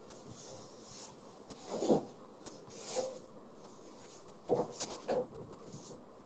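Several short rustling, scraping noises over a faint steady hiss, the loudest about two seconds in and again about four and a half seconds in.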